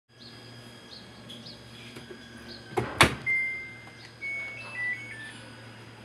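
Samsung front-loading washing machine door swung shut, latching with a click and a loud thud about three seconds in. A short run of electronic beeps at a few different pitches follows from the washer.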